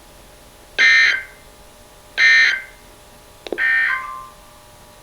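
Emergency Alert System end-of-message (EOM) data burst, the digital code sent three times to close an EAS alert. It is heard as three short, harsh buzzy chirps about a second and a half apart.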